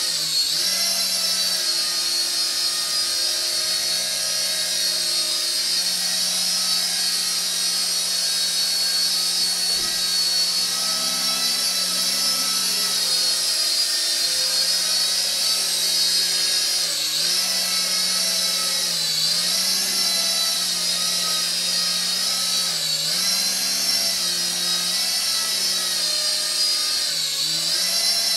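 KY202 toy coaxial helicopter's electric motors and counter-rotating rotors whining steadily in a hover. The pitch dips briefly about four times in the second half as the helicopter corrects its altitude.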